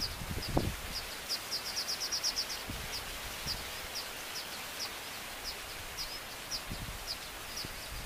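Baya weaver chirping: short, high, dry chirps about once or twice a second, with a quick chattering run of them about two seconds in, over a steady outdoor hiss. A couple of low thuds near the start.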